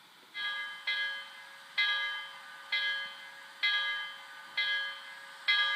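Locomotive bell sound from the Loksound decoder in a brass Baltimore & Ohio P7 Cincinnatian model steam locomotive, ringing steadily about once a second from shortly after the start, each strike fading before the next.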